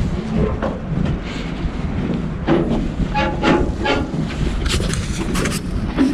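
Wind buffeting the microphone as a steady rumble, with a run of sharp knocks and clicks through the middle.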